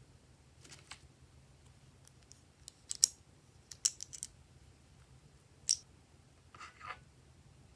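Glossy slime being pressed and pulled by hand, giving a few sharp sticky clicks and pops spread over several seconds, with a softer squelch near the end.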